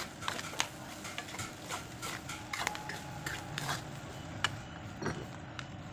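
Metal spatula scraping and clicking against a stainless steel wok while stirring chopped pork lung and vegetables. The clicks come several times a second and thin out after about four seconds.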